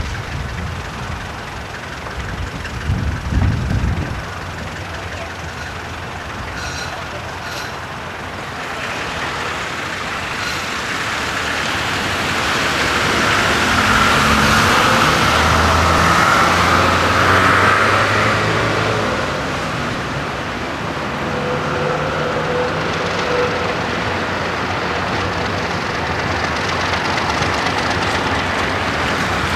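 Diesel locomotive moving a slow engineering train of loaded ballast hopper wagons past, its engine hum growing louder as it draws near and loudest around the middle, with the wagons rolling on the rails. A couple of low thumps sound in the first few seconds.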